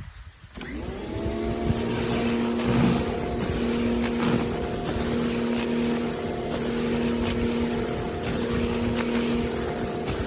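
Greenworks 1800 psi electric pressure washer starting about half a second in, its motor and pump hum rising quickly to a steady pitch and then running steadily over a hiss of spraying water.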